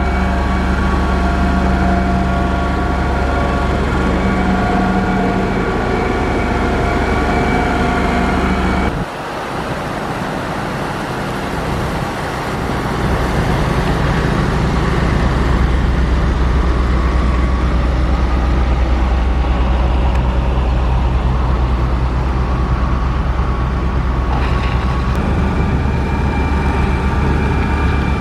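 Motor grader's diesel engine running steadily at work. About nine seconds in, the sound drops off abruptly and changes character, and it builds back to a loud, steady engine note from about thirteen seconds.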